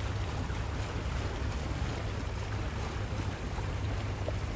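Sailing yacht's engine running steadily under way as a low, even drone, with wind and water noise over it.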